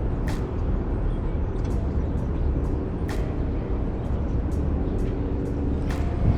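City street traffic: a steady low rumble of passing vehicles, with faint light ticks every half second or so.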